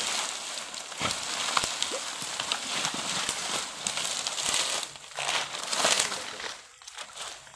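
Rustling and crackling of dry leaves and brush, as of something moving through undergrowth, with many short irregular crackles over a steady hiss.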